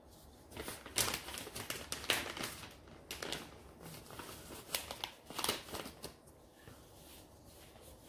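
Thin plastic being handled with gloved hands, crinkling and rustling in irregular bursts that stop about six seconds in.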